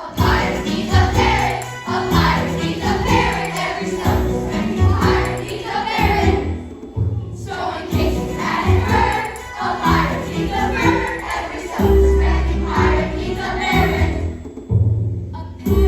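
A group of voices singing a song with instrumental backing and a steady bass line, in two phrases, each followed by a brief pause.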